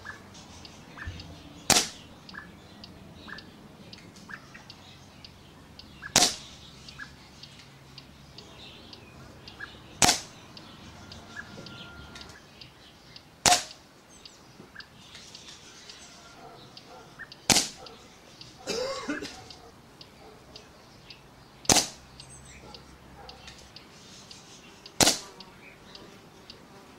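Air Arms S400 Classic pre-charged pneumatic air rifle firing pellets: seven sharp shots spaced about three and a half to four seconds apart, a steady cadence of aimed shots at a target.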